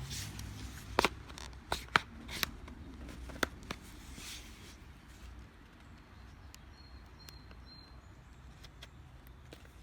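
Sharp plastic clicks and scraping as the snap-fit clips of an Amazon Fire HD tablet's plastic back cover are pried loose with a fingernail. Several clicks in the first four seconds, the loudest about a second in, with a low steady hum underneath.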